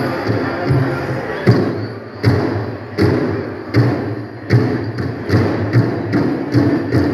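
Powwow drum beaten for a dance song. The quick steady beat gives way about a second and a half in to a few heavy strokes spaced under a second apart, then picks back up to a quick beat about halfway through.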